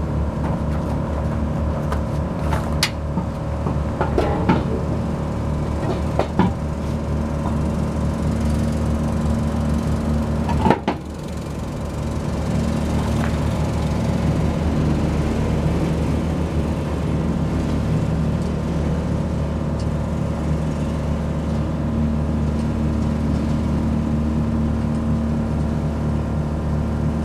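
A steady mechanical hum runs throughout, with a few sharp clicks and knocks from a car wheel and its lug nuts being fitted onto the hub. The loudest knock comes about eleven seconds in.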